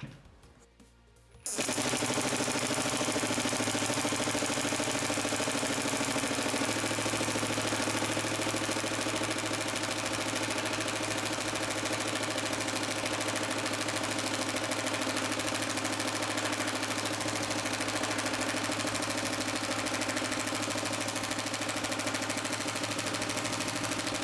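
Ryobi P238 brushless 18-volt impact driver hammering as it drives a drywall screw. It starts suddenly about a second and a half in and keeps hammering without a break for over twenty seconds.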